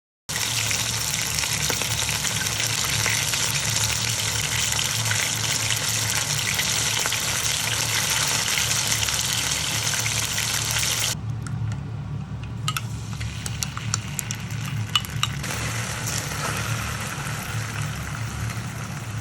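Chicken pieces frying in hot oil, a dense steady sizzle that thins to a quieter crackle with scattered pops about eleven seconds in. A steady low hum runs underneath.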